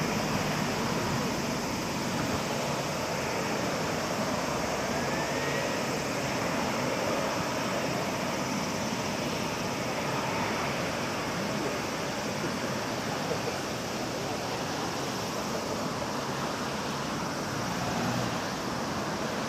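Airbus A380-861's four Engine Alliance GP7200 turbofans running at low thrust as the airliner rolls slowly on the ground, a steady even jet rumble and hiss.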